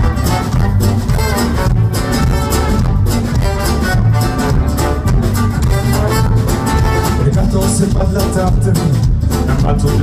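Live band playing upbeat Latin-style music with a steady beat, a violin carrying the melody over acoustic guitar, electric bass, drum kit and horns, heard through the stage PA.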